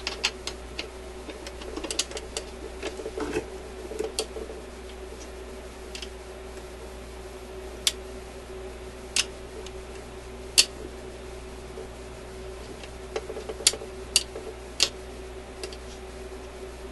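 Light clicks and metallic taps from the changer mechanism of a vintage Admiral suitcase record player as its gear, cam and spindle parts are moved by hand. The clicks come in a quick cluster over the first few seconds, then as single sharp clicks a second or more apart, over a steady hum. The mechanism is binding a little.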